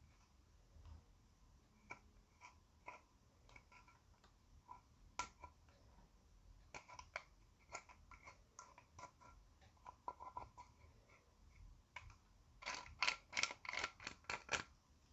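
A thin stick scraping and breaking up a baked powder highlighter in its compact: a run of dry, scratchy clicks, growing into a quick flurry of louder scrapes near the end.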